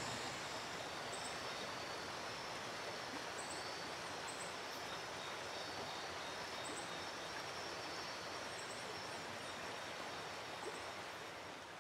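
Steady outdoor hiss of wetland ambience, with a few faint, short, high chirps scattered through it; it fades near the end.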